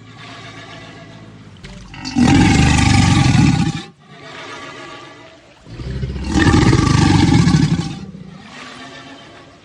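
American alligator bellows played as a sound effect: two long, loud bellows about four seconds apart, with quieter growling between them.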